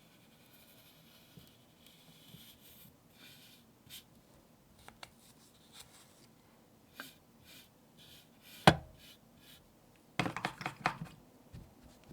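Small objects handled by hand on a tabletop: soft scrapes and light taps, a sharp knock about two-thirds of the way through, then a quick rattle of small clicks.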